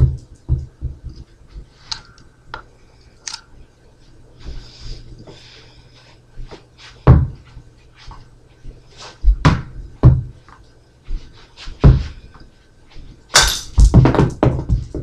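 Irregular knocks and thumps from handling and moving about, spaced a few seconds apart, with a quick run of knocks near the end.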